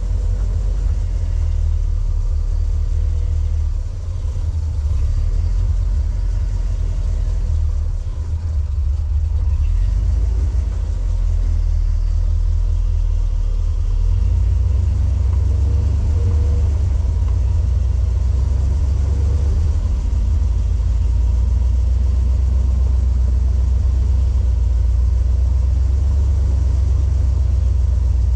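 Off-road vehicle's engine running at low speed, a steady low rumble that dips slightly about four and eight seconds in.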